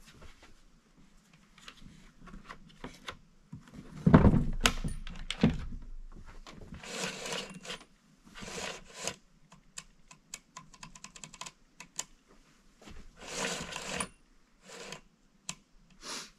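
A chainsaw being handled on a wooden table: small clicks and knocks, a heavy thump about four seconds in as the saw is set down on the boards, and a few short scraping bursts.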